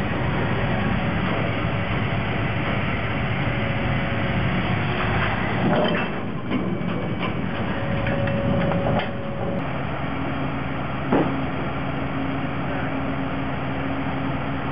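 A large engine running steadily. It settles to a smoother, even idle about ten seconds in.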